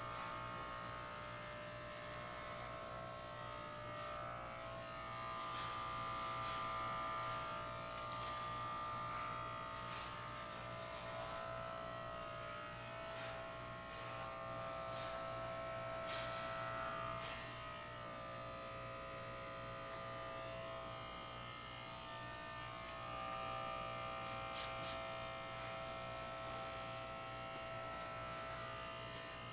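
Electric hair clippers running with a steady buzz as they shave hair off a head. There is one short sharp click about eight seconds in.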